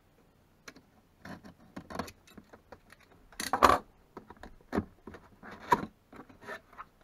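A cardboard box being opened by hand: the tape along the lid slit and the flaps worked loose, giving a run of irregular scrapes and rustles, with a louder scrape about halfway through and another a couple of seconds later.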